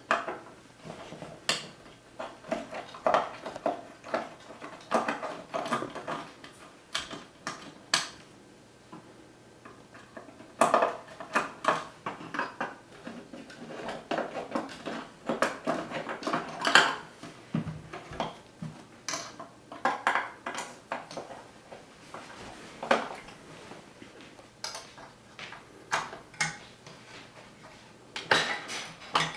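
Screws being undone with a small screwdriver and handled on a DLP TV's metal optical-unit chassis: irregular light clicks and metallic clinks of the tool, loose screws and parts.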